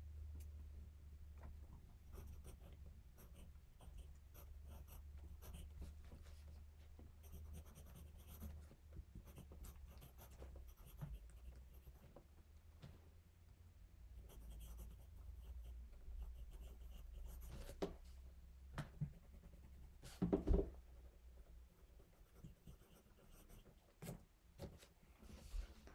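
Pencil writing on notebook paper, a faint scratching over a low steady hum, with a few soft knocks on the desk; the loudest knock comes about twenty seconds in.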